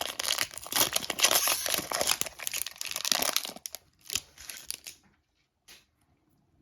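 Trading card pack wrapper being torn open and crinkled, a dense crackling for about three and a half seconds, then a few single crinkles before it goes quiet.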